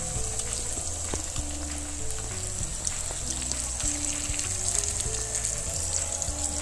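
Masala-coated fish steaks shallow-frying in oil in a pan: a steady sizzle with small crackling pops.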